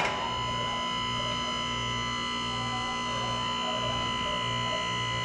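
Steady electrical hum made of several constant tones, with a faint low throbbing that comes and goes underneath: room tone.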